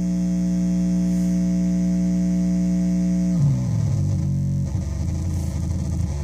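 Metsään Dirty Drone [anarchy] synth, a three-triangle-oscillator drone/noise synth, sounding a steady buzzing drone. About three and a half seconds in the pitch slides down and the tone breaks up into a rough, wavering, unstable buzz.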